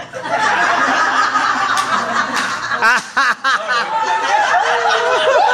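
A group of people laughing together, loud and overlapping, breaking out all at once at the start, with quick ha-ha pulses about halfway through and laughing voices trailing into talk near the end.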